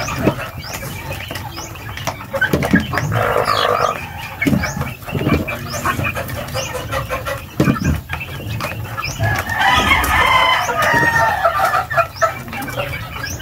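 Chickens clucking and pecking at feed in a dish, with short tapping knocks. A drawn-out rooster crow comes about ten seconds in.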